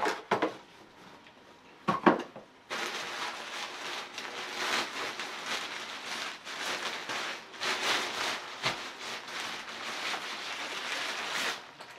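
A couple of sharp knocks from a cardboard box being handled, then continuous crinkling and rustling of the thin fabric of a deflated airblown inflatable as it is unfolded and shaken out, swelling and easing with the handling.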